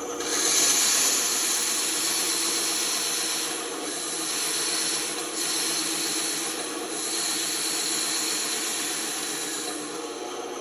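Band saw running with a steady motor hum while its blade cuts a straight line through wood. The cutting makes a loud rushing hiss that starts just after the opening and stops about 10 seconds in, leaving the saw running free.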